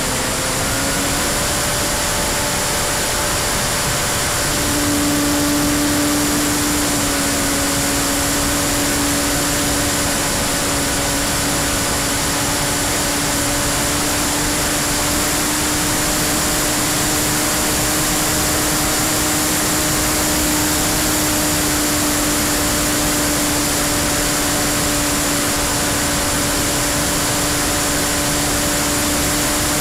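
Electric motor and propeller of a Freewing P-51D RC model plane in flight, heard from an onboard camera: a steady whine over heavy wind rush. The whine shifts up in pitch about a second in and again around five seconds in with throttle changes, then holds.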